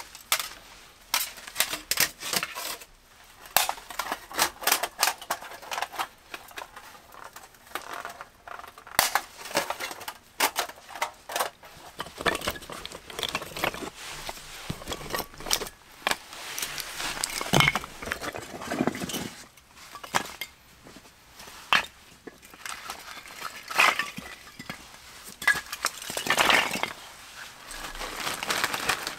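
Camping gear being handled by hand: metal cookware and bottles clinking and knocking as they are taken from a padded gear bag. Near the end, split firewood pieces clatter as they are set down.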